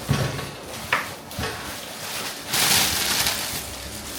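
Packaging being handled while an air fryer is unboxed: a few light knocks, then about a second of rustling about two and a half seconds in.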